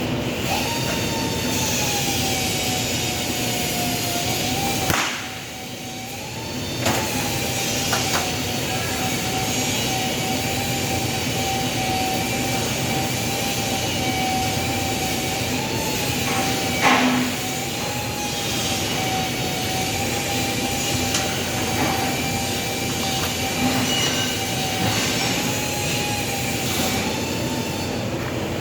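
Steady machine noise with a wavering, fairly high whine running through it. A few sharp clicks cut in, about five, eight and seventeen seconds in, and the noise dips briefly after the first.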